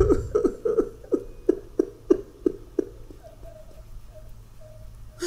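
A man sobbing in grief: a run of about ten short, falling sobs over the first three seconds, then fainter catching sounds.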